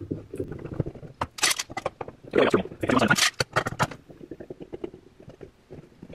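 Steel bar clamps being slid on and tightened onto a freshly glued plywood cabinet joint: a busy run of sharp metallic clicks and clacks, easing into fainter, quick ticks after about four seconds.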